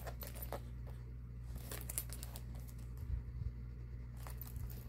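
Faint rustling and small clicks of a crossbody phone bag being handled, its flap and strap fittings moving, over a low steady hum.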